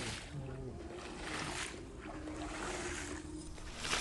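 Rubber floor squeegee pushed across a soaked rug, sweeping dirty soapy water off it in repeated wet swishes a little over a second apart.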